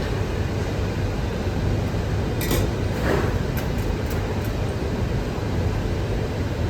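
Steady low hum of room ventilation or air conditioning, with a few light clinks of crockery and cutlery about two to four seconds in.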